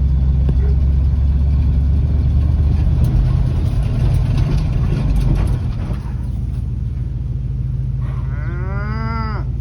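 A pickup truck's engine rumbles steadily and eases off about six seconds in. Near the end, a cow gives one long moo that rises and then falls in pitch.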